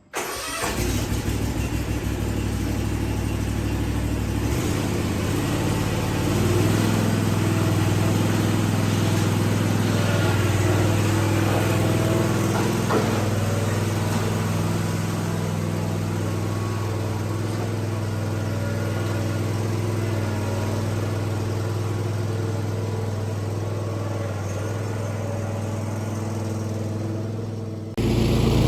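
Gravely ZT HD52 zero-turn mower engine coming to life and running steadily, its note picking up and growing louder about six seconds in.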